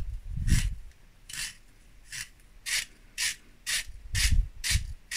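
Steel blade of a pencil-sharpener-style vegetable slicer shaving a carrot as it is twisted in the cone: a series of short rasping scrapes, about two a second, with a few low knocks from the handling.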